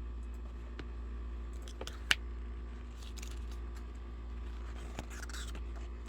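An album's photo book and packaging being handled: paper rustling and soft clicks, with one sharp click about two seconds in, over a steady low hum.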